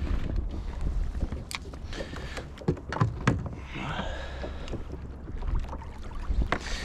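Wind buffeting the microphone and water slapping against a small boat's hull, with scattered sharp knocks and clicks from fishing rods and gear being handled aboard.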